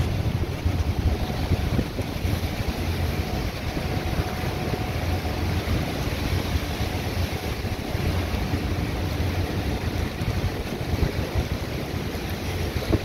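Hurricane wind blowing on the microphone as a steady low rumble, over the rush and wash of rough, wind-driven storm-surge waves.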